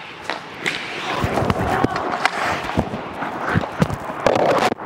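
Ice hockey play: sharp clacks of sticks on the puck and skates scraping the ice, with players' voices calling out. A louder burst of voices comes near the end.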